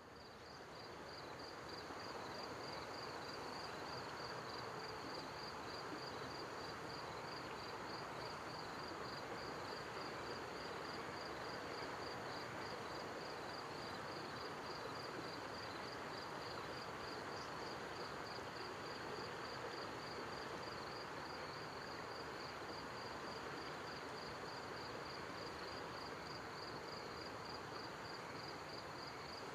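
Outdoor ambience fading up over the first couple of seconds: a steady soft hiss with a high-pitched insect trill of rapid, even pulses.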